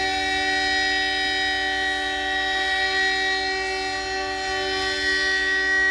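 Emergency alert alarm tone: a loud, steady chord of several pitches held without any change in pitch.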